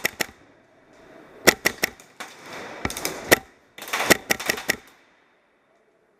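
Airsoft guns firing: sharp snapping shots in short groups, with a quick rapid string about four seconds in, then the sound cuts out to silence about a second later.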